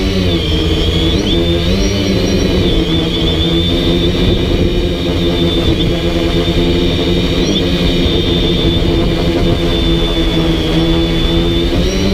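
DJI Flame Wheel F450 quadcopter's motors and propellers whining steadily as it flies, with a low rumbling noise beneath. The pitch wavers up and down in the first two seconds, then holds steady.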